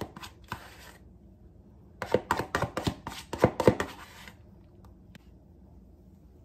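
Plastic Cool Whip tub being handled and scraped out with a spoon: a few light clicks at the start, then a quick cluster of plastic clicks and scrapes about two to four seconds in.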